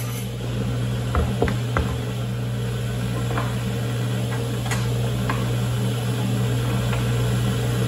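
Steady low hum of a woodshop machine running, with a few light taps and clicks of short wooden boards being handled on the saw table.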